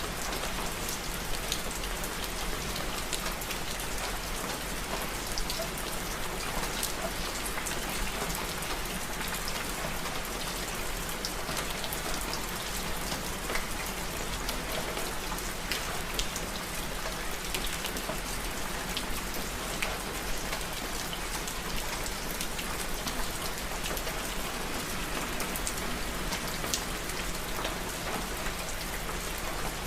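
Steady rain: an even hiss of falling rain with many scattered sharper drop ticks, unchanging throughout.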